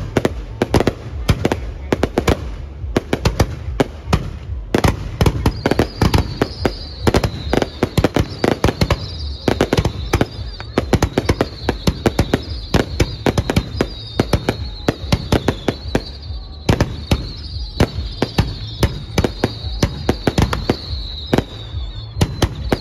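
Fireworks display: many rapid, overlapping bangs and crackles of bursting shells. From about five seconds in, a high wavering tone repeats over the bangs roughly once a second.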